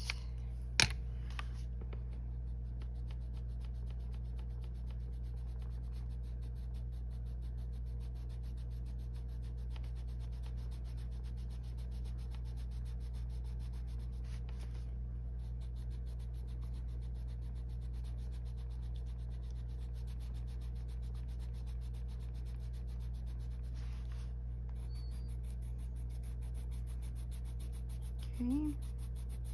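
Coloured pencil, an Arteza camel brown, rubbing on paper in quick, even shading strokes over a steady low hum. One sharp click about a second in.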